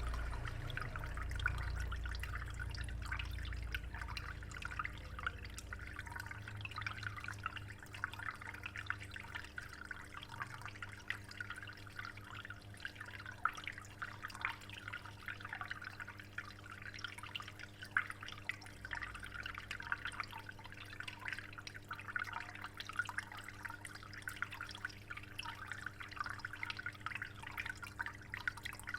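Water trickling and dripping steadily into a discus aquarium, a continuous patter of small splashes, with a low steady hum underneath that is stronger in the first few seconds.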